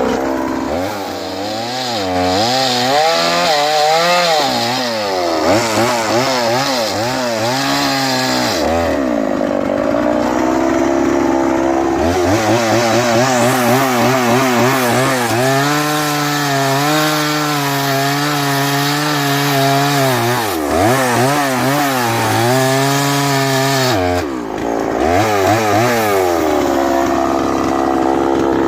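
Two-stroke chainsaw cutting wood, its engine pitch wavering up and down as it labours in the cut and revs back up. It falls back to a lower, steadier speed twice, about a third of the way in and again near the end, before climbing again.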